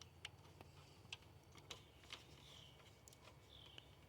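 Near silence, with a few faint scattered clicks and a couple of faint bird chirps in the second half.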